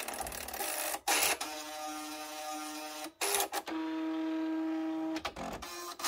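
Nakajima WPT-160 electronic typewriter's print mechanism resetting after Code+W: sharp clacks with two spells of steady motor whine between them, as the print wheel returns to its home position.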